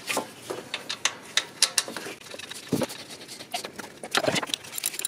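Irregular small clicks and knocks of hand tools and bolts on the alternator mounting as its bolts are fitted and pre-tightened by hand, with a couple of heavier knocks and some glove rustle.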